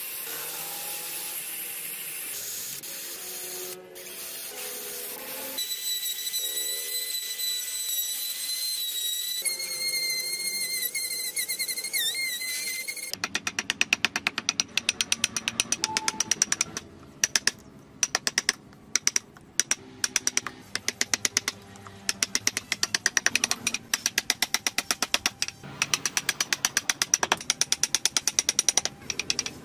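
An electric rotary carving tool with a burr grinding into wood, its motor whine steady and then wavering under load. About thirteen seconds in it gives way to fast, rhythmic tapping as a carving gouge is driven into the wood, louder than the grinding.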